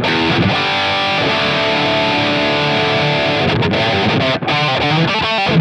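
Overdriven electric guitar played through a custom PAF-style zebra humbucker (Alnico 4) in the bridge position. Picked notes lead into a chord left ringing for about two seconds, followed by quicker picked notes.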